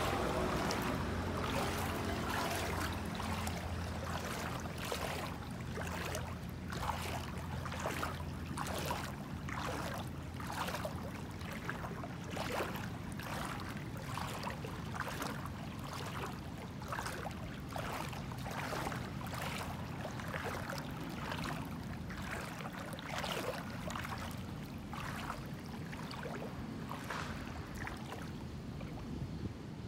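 Footsteps wading through floodwater: a steady run of sloshing splashes, a little faster than one a second. A low steady hum sounds under them for the first nine seconds or so.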